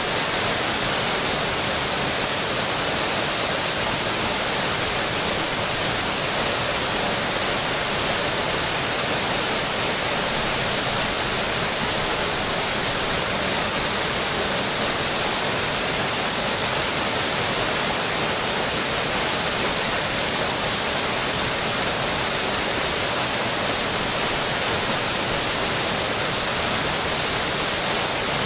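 Waterfall pouring steadily into a mountain stream, an even rushing hiss of falling water.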